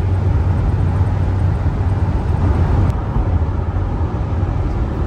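A truck driving: steady engine and road drone with a low hum.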